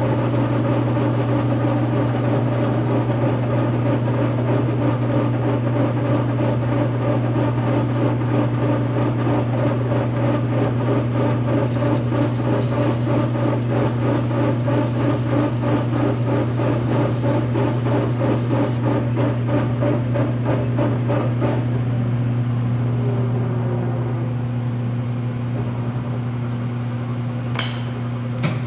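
Metal lathe turning a steel ring while a file wrapped in emery cloth is held against it, giving a fast, even rhythmic rasping over the steady low hum of a rotary phase converter. About three quarters of the way through, the lathe and the filing stop, leaving the converter's hum, and a couple of sharp clicks follow near the end.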